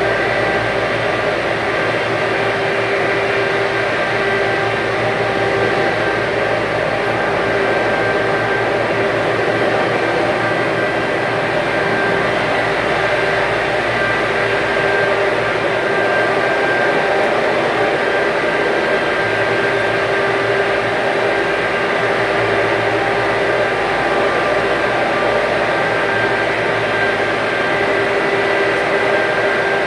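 Stick-welding (SMAW) arc crackling steadily through an overhead weld pass, with a steady hum underneath.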